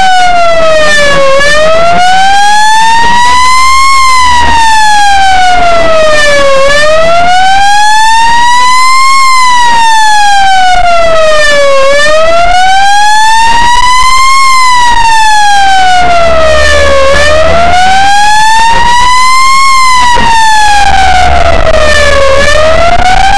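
Ambulance's electronic siren on a slow wail, very loud, its pitch rising and falling smoothly about every five seconds, over the low rumble of the moving vehicle.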